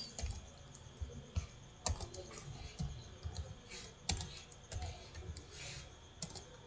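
Computer keyboard typing: irregular, quick keystrokes with a few louder taps.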